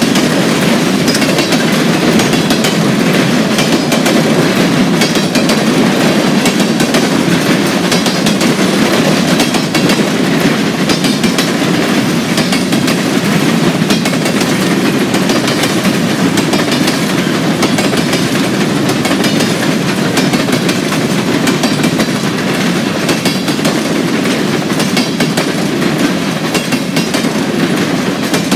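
Train cars rolling past: a steady loud rumble of wheels on rail, with quick clicking of wheels over the rail joints throughout.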